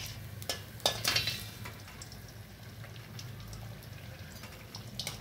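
A breadcrumb-coated potato and vegetable patty deep-frying in hot oil on a medium flame, a steady bubbling sizzle. A few sharp clicks come about a second in.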